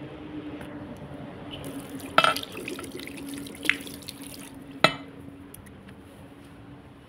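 Tap water running into a ceramic washbasin as a hand is rinsed under it, with three short, sharp sounds, the loudest about two seconds in. The running water dies down after about five seconds.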